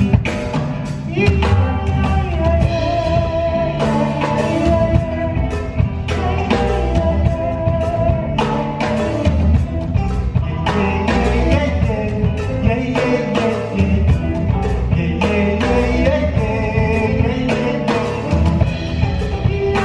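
Live band music: acoustic and electric guitars, electric bass and drum kit playing a steady groove, with a held melody line on top.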